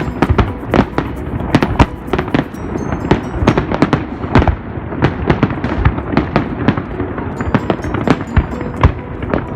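Dense barrage of fireworks exploding, several sharp bangs a second over a continuous rumbling roll of bursts.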